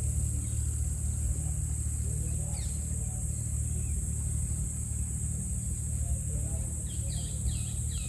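Steady low rumble like an engine or vehicle running, under a constant high insect-like drone. Near the end come a quick run of short high chirps, about three a second.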